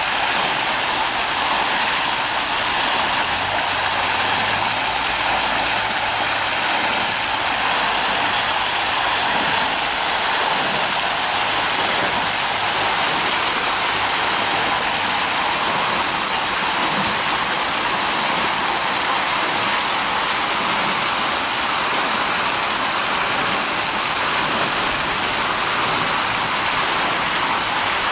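Ornamental fountain running: tall water jets and a row of fan-jet nozzles spraying bell-shaped sheets of water that splash into the basin, a steady rushing hiss.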